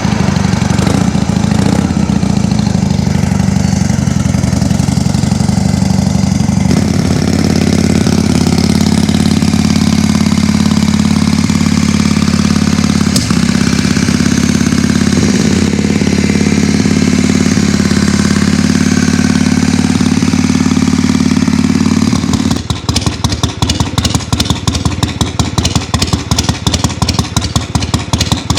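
Harley-Davidson Shovelhead V-twin running on its original exhaust, held at a steady fast idle, then about 22 seconds in settling to a slower idle with distinct, evenly spaced pulses.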